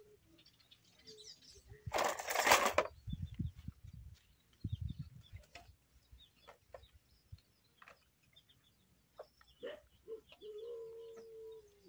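Farmyard chickens: a short, loud flutter about two seconds in, the loudest sound, then a few soft knocks and light clinks of serving dishes, and near the end a steady, drawn-out hen call lasting about a second.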